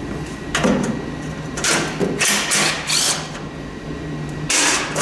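Hand tools working on the metal parts of an old snowblower: about six short rasping metal-on-metal scrapes, spread unevenly.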